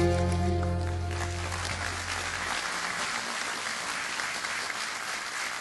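The ensemble's last held chord dies away over the first two seconds or so as audience applause rises, then steady applause carries on alone.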